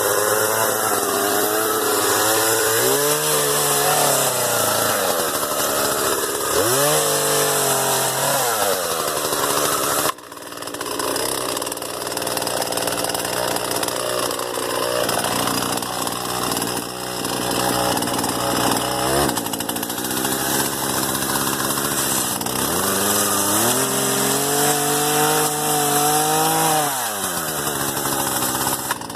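Gasoline chainsaw cutting through a bush, its engine revving up under throttle and dropping back to idle several times. The sound breaks off abruptly about ten seconds in and picks up again.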